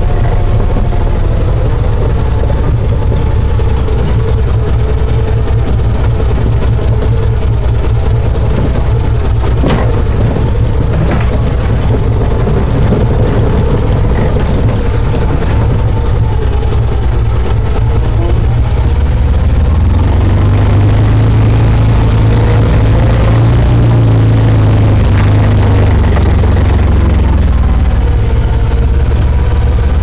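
Can-Am Commander 1000 XT side-by-side's Rotax V-twin engine running at low trail speed, its pitch drifting up and down with the throttle, heavier from about two-thirds in. One sharp knock about ten seconds in.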